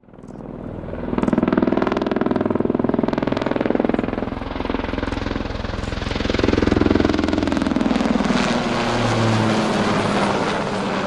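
Helicopter turbine and rotor sound with a rapid beating, fading in quickly and swelling twice, its pitch sliding down near the end.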